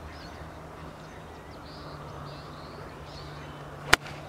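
A golf club striking a ball once near the end: a single sharp crack. Faint bird calls sound in the background.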